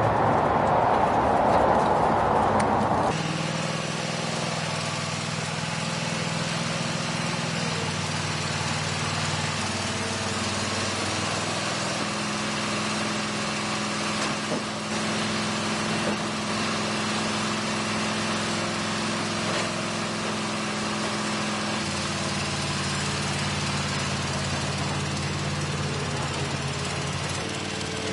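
Small engine running steadily, its pitch stepping up and down a few times. For the first three seconds a louder rushing noise covers it.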